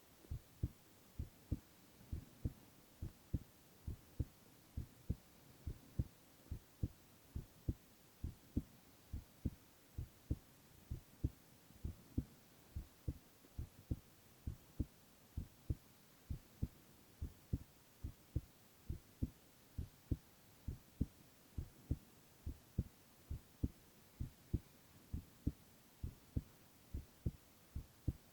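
A young man's heartbeat, close up: a steady, even rhythm of low, dull lub-dub thumps with no break.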